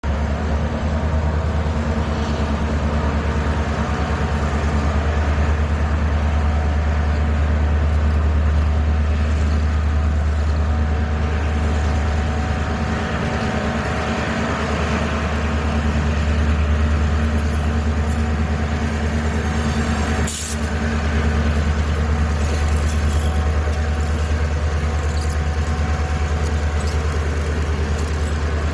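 Soo Line diesel-electric freight locomotive's engine running with a steady low drone as the train rolls slowly toward and past, with a brief dip in sound about two-thirds of the way through.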